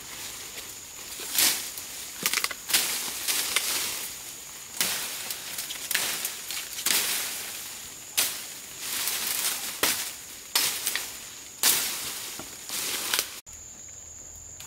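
A series of sharp crunching strikes, roughly one a second, some drawn out longer, over a steady high-pitched whine; the sound cuts off abruptly near the end.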